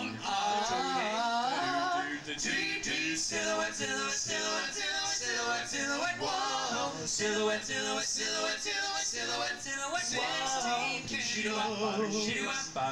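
Male vocal group singing a doo-wop-style song in close harmony, the voices sliding and holding notes together.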